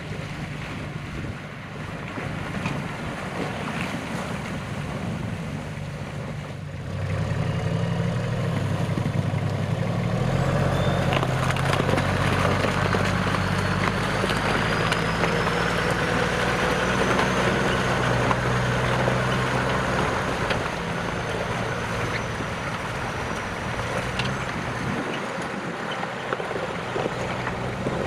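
Off-road SUV's engine running under load as the vehicle churns through slush, water and broken ice, the tyres splashing and crunching; the engine gets clearly louder about seven seconds in.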